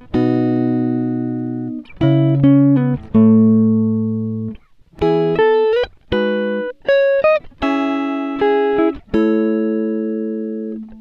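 Background music: a run of sustained chords, each ringing and slowly fading before the next, with brief breaks between them.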